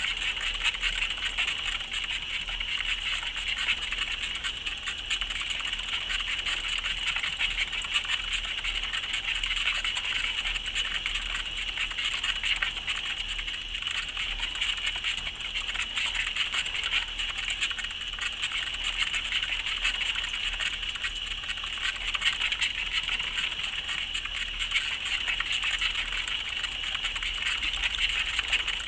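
Two plastic exercise wheels spinning under running highland streaked tenrecs: a continuous fast rattle of the wheels mixed with the patter of small feet, steady throughout.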